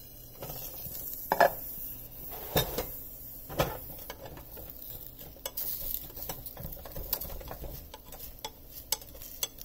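A glass lid is lifted off a non-stick pan, with a few knocks, then a wooden spatula scrapes and taps around the edges of a dosa, loosening it as it sizzles in oil.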